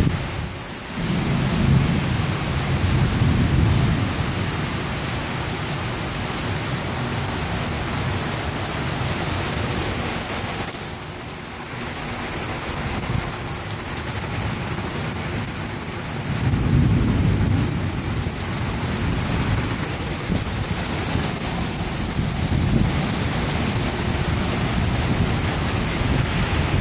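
Heavy rain pouring steadily, with thunder rumbling low twice, a couple of seconds in and again about two-thirds of the way through.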